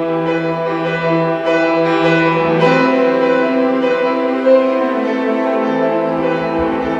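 Classical music with long held notes on bowed strings; the chord shifts to higher notes about three seconds in.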